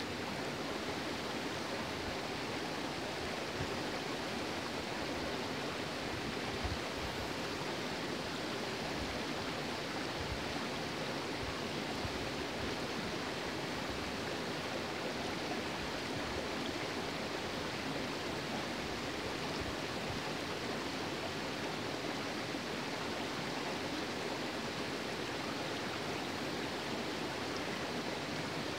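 Shallow stream running over rocks and stones, a steady rush of water.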